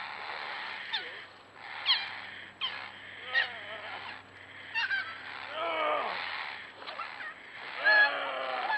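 Small puppy yelping and squealing in a series of short, high cries that fall in pitch, over a steady hiss.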